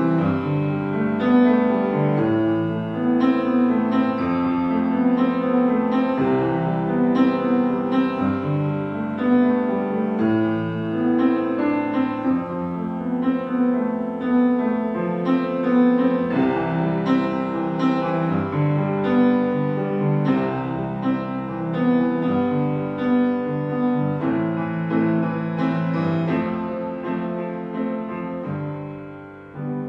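Piano music playing chords with a melody over them, fading out near the end.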